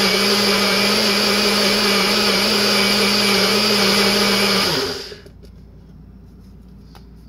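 Nutribullet-style single-serve blender running steadily at full speed, blending ice cubes and fruit into a smoothie. About five seconds in it is switched off and winds down, followed by a few faint clicks as the cup is lifted off the motor base.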